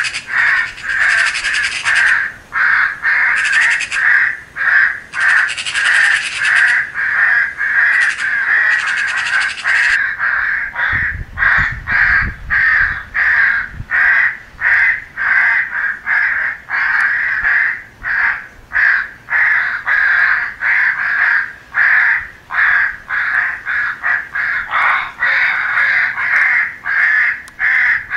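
Crows cawing over and over, many loud caws following one another every half second or so. This is a recorded crow call made for playback through an electronic predator and crow caller.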